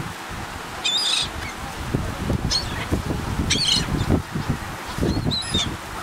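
A flock of gulls calling: four short, shrill squawks about a second apart, over a low irregular rumble.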